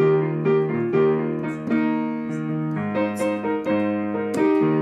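Digital piano playing a song accompaniment on its own: chords struck again and again in a steady beat, changing chord a few times.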